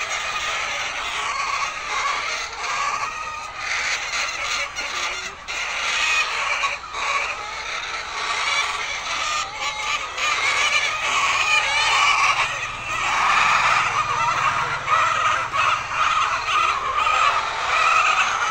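Flock of many laying hens clucking and calling together, a dense continuous chatter of overlapping calls that grows busier in the second half.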